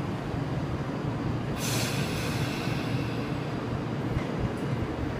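Tokyu 8500 series electric train rolling slowly to a stop at the platform, a low rumble from its wheels and motors, with a hiss of air from the brakes lasting about a second, a second and a half in.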